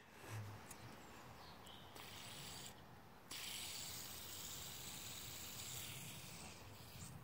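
Fidget spinner spinning on a fingertip, its ball bearing giving a faint, steady high whir that sets in about three seconds in. A soft knock comes near the start.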